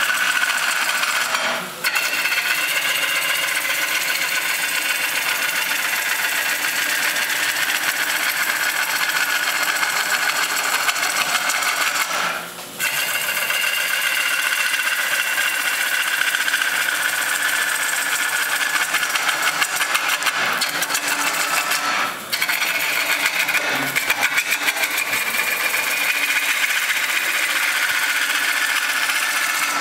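Turning tool cutting the outside of a spinning 24-inch Russian olive bowl on a wood lathe: a steady shearing hiss of wood being cut, with a steady high tone under it. It breaks off briefly three times.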